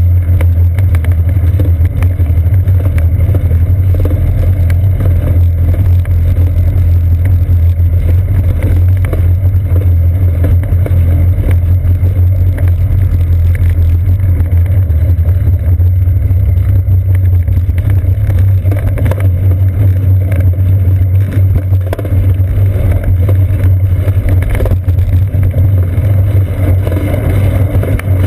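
Loud, steady low rumble of a bicycle rolling along, carried through the seat post into a GoPro Hero 2 mounted on it, with many small irregular knocks from the bike jolting over the surface. The bike crosses wooden boardwalk planks and comes onto a paved path.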